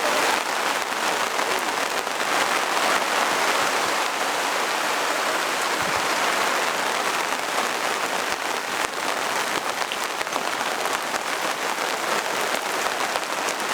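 Steady rain pattering on a surface, an even hiss of many fine drops.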